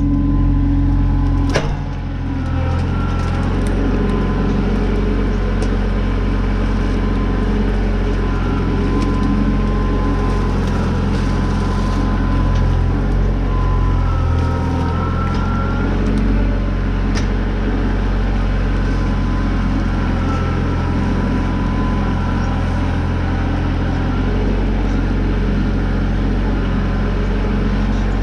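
Tractor engine running steadily while the tractor works with its pallet forks, with a sharp knock about a second and a half in.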